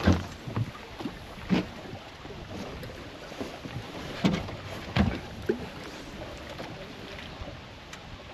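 Fishing boat sitting on a river: steady water and wind noise against the hull, with about six dull knocks and thumps aboard, the loudest right at the start and about five seconds in.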